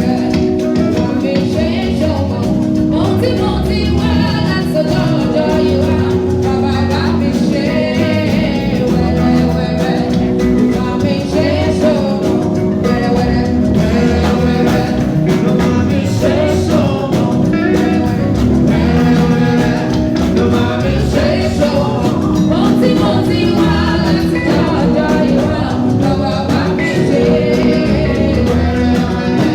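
Live band playing a song, with a singer over the instruments at a steady, full level.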